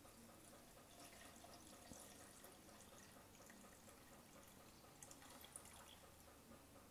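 Faint pouring of hot milk from a jug into a blender jar, with a couple of light ticks about five seconds in.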